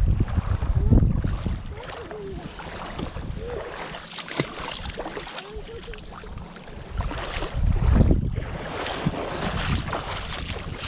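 Wind buffeting the microphone, with strong gusts at the start and again about seven seconds in, over choppy lake water lapping at the shore.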